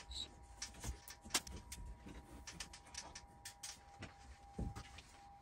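Faint scattered clicks, taps and scrapes of a drop-ceiling tile being pushed up and lifted out of its metal T-bar grid, with a dull thump about four and a half seconds in. A faint steady tone sits underneath.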